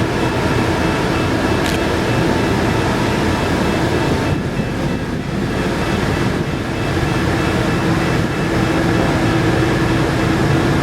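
Steady drone of the ferry MV Salish Heron's machinery as it gets under way: a constant hum with a few steady tones, dipping briefly about halfway through.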